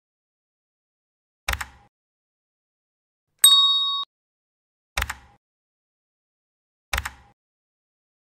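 Mouse-click sound effects and a notification bell chime over silence: a click about a second and a half in, a bright bell ding a couple of seconds later, the loudest sound here, then two more clicks.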